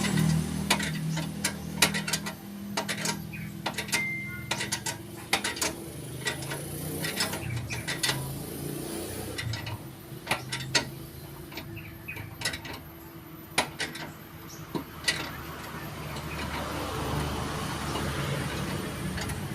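Irregular metallic clicks and clinks of hand tools at work, over a low steady hum.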